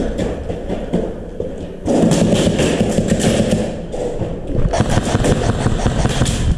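Airsoft guns firing rapid full-auto bursts close to the microphone: a dense stream of clicks that starts hard about two seconds in, eases briefly past the middle, then carries on.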